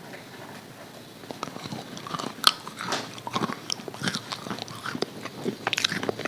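Crunchy bites and chewing of crispy KFC fried chicken coating, a fast run of crackles starting about a second in, with one loud crack near the middle.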